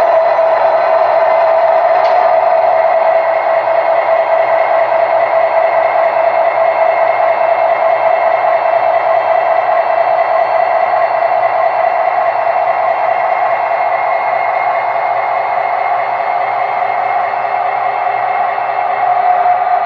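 Sound decoder in an O scale brass SD70 model diesel locomotive playing a steady EMD diesel prime mover sound through the model's small speaker as the locomotive runs along the track.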